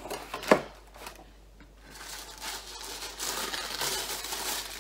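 A cardboard box is set down with a sharp knock about half a second in, then paper rustles and crinkles steadily as the box is opened and the wrapped contents are handled.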